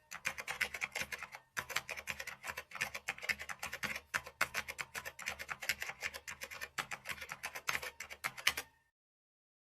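Rapid typing on a computer keyboard, a dense run of irregular key clicks with a short break about one and a half seconds in, cutting off abruptly near the end.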